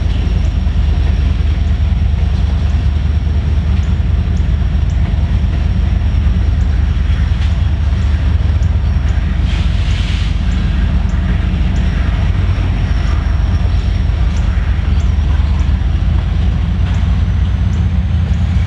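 Freight train's tank cars and a bulkhead flatcar rolling steadily past: a loud, even rumble of steel wheels on rail, with a faint high tick about once a second.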